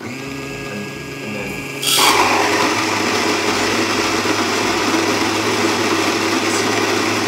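Baratza Vario electric burr grinder running: a steady motor hum, then about two seconds in a much louder, steady grinding noise as it grinds coffee beans to a medium grind.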